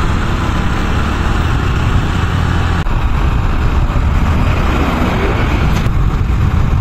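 Motorcycle on the move, heard from the rider's camera: a steady rush of engine, wind and road noise, with a slight abrupt change about three seconds in.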